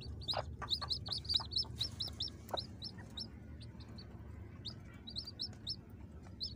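Newly hatched chicks peeping: short, high peeps several a second, thinning out in the middle and picking up again near the end, with a few short taps among them.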